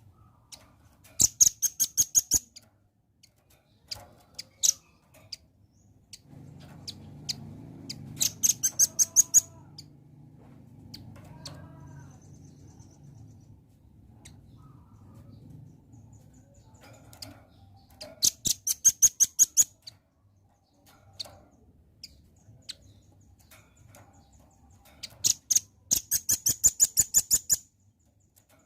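Velvet-fronted nuthatch calling: four bursts of rapid, sharp, high chips, each lasting about two seconds, with scattered single chips between them.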